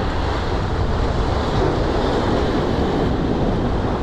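Sea waves washing and breaking over shoreline rocks, with wind buffeting the microphone in a steady low rumble.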